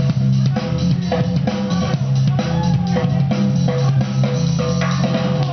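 Loud music with a drum-kit beat, a strong bass line and short repeated notes above it.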